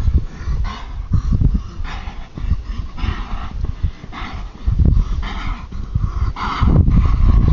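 An animal calling again and again in short calls, irregularly, about one every half second to a second, over an uneven low rumble.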